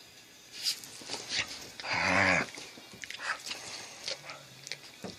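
Two dogs, one a dachshund, play-fighting on a bed: short snorts, snuffles and rustling, with one loud growl about half a second long around two seconds in and a fainter growl near the end.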